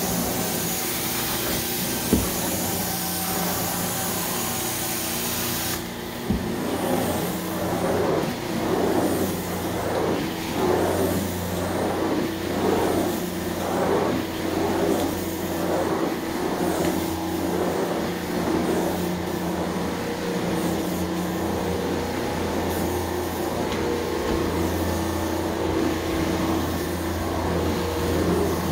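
Carpet-cleaning extraction wand pulling air and water up from the carpet with a steady suction noise over a constant machine hum. A loud hiss for about the first six seconds cuts back sharply, then the sound swells about once a second as the wand is drawn across the pile in strokes.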